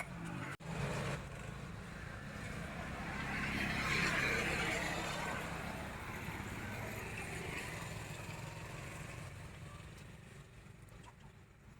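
A vehicle passing by, swelling to its loudest about four seconds in and then fading away, after a sharp click at the very start.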